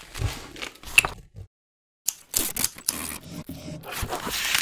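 Cardboard and paper being handled: short bursts of scraping and crinkling, a brief dead break about a second and a half in, then a denser run of scraping and rustling as a cardboard box is opened.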